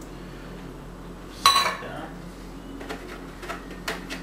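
A sharp metallic clink of kitchenware set down on the counter about one and a half seconds in, followed by a few lighter clicks and knocks of items being handled.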